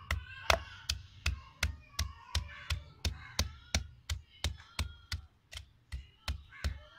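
Wooden pestle pounding fresh ginger into a paste in a mortar: a steady run of dull knocks with a low thud, about three strokes a second.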